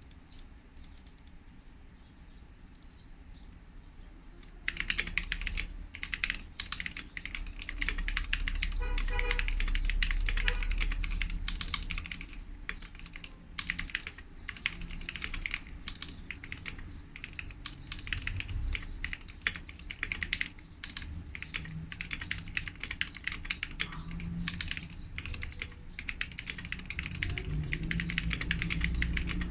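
Typing on a Gamakay K87 mechanical keyboard with stock Gateron Yellow linear switches, lubed stabilizers and PBT keycaps: a few scattered keystrokes, then fast continuous typing from about five seconds in.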